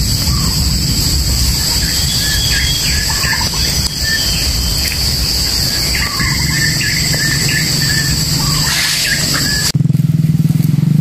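A steady high insect drone with birds chirping over it and a low rumble underneath. Near the end it cuts off abruptly and a low, steady motor hum takes over.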